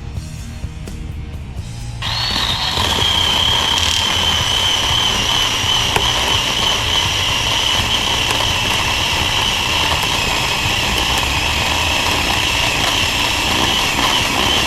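Chainsaw revved up to full throttle about two seconds in and held there while cutting through a downed tree trunk, its high whine sagging slightly under load. Music plays underneath.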